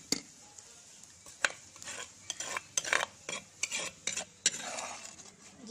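Cumin seeds sizzling and popping in hot mustard oil in a steel kadhai, with a metal ladle stirring and scraping the pan; a quick, irregular run of sharp clicks and pops.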